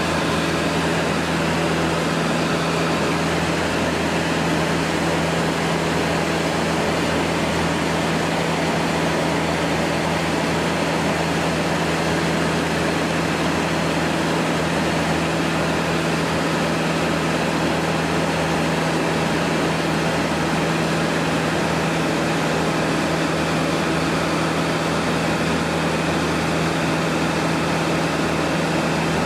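Cessna 150's four-cylinder Continental O-200 engine and propeller droning steadily in flight, heard inside the cabin as a constant low hum over a steady rushing hiss.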